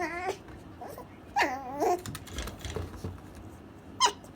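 Toy poodle puppy whining in high-pitched, wavering cries: one at the start, a longer one about a second and a half in, and a brief yelp near the end.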